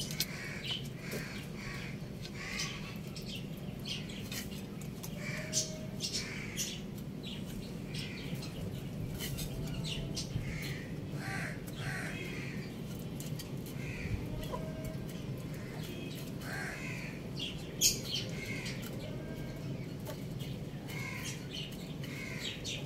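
Birds chirping and calling off and on, with scattered short clicks, over a steady low hum.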